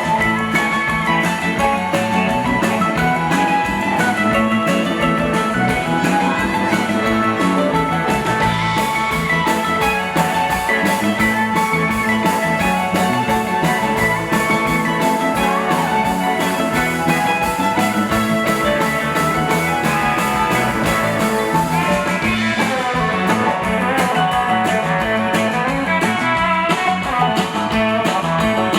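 Live blues band performance with guitar to the fore over a steady beat.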